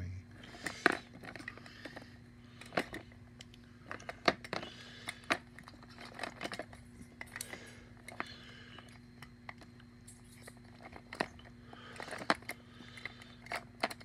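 Plastic disposable lighters clicking and clacking against each other and the plastic tub as a hand sorts through a tubful of them: irregular sharp clicks throughout, with a few louder clacks.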